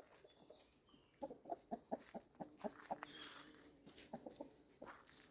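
Chickens clucking faintly in two runs of quick, short clucks, the first starting about a second in and the second near the end.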